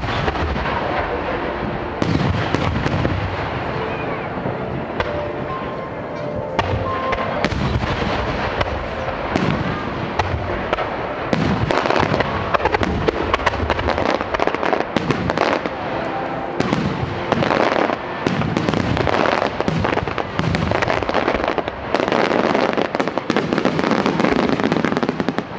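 Aerial firework shells bursting overhead at very close range, a dense run of booms and crackle with no let-up. The bursts grow thicker and louder from about eleven seconds in, as the finale barrage builds.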